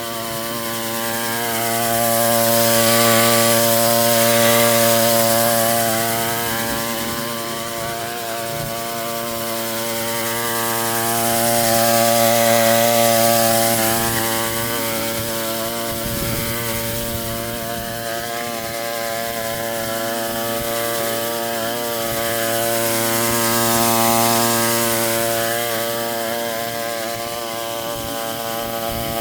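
Westermann petrol-engined moss brush running steadily while its rotating brush scrubs moss off the car park surface; the scrubbing hiss swells and fades three times as the brush is worked across the ground.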